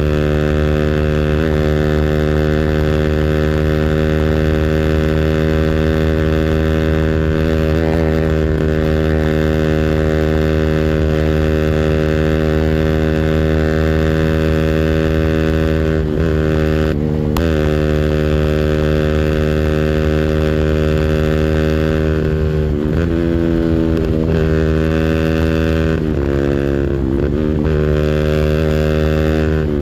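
200cc engine held on its rev limiter, running at a steady high pitch with no let-up. Its pitch briefly dips and climbs back several times, at about 8 and 16 seconds in and more often near the end.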